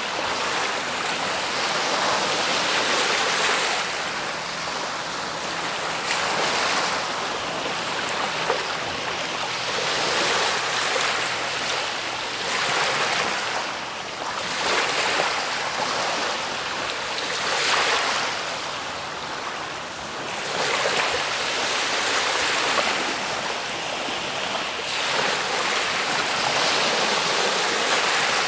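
Ocean waves washing onto a shore: a continuous wash of surf that swells and ebbs about every three to four seconds, mostly bright and hissy with little deep rumble.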